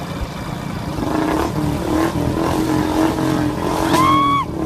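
Motorcycle engine running, then revving up sharply in pitch near the end before cutting off.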